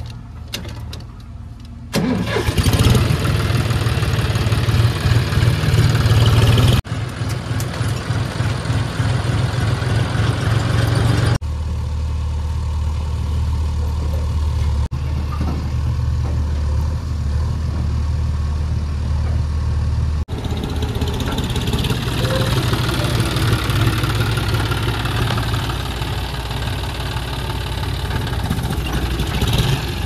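John Deere 5045 D tractor's three-cylinder diesel engine starting up about two seconds in, then running loudly and revving at times. The engine sound changes abruptly several times.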